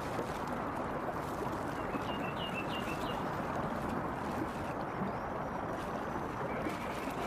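Steady rush of river water, with a bird calling in a quick series of four or so short chirps about two seconds in and a fainter call near the end.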